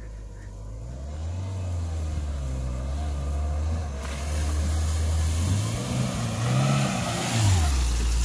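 Ford Ranger pickup's engine driving off, its pitch rising and falling as the revs change, with a rushing hiss joining about four seconds in.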